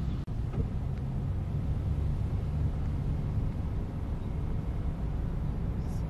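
Steady low road and engine rumble of a vehicle driving, heard from inside the cabin, with a momentary dropout just after the start.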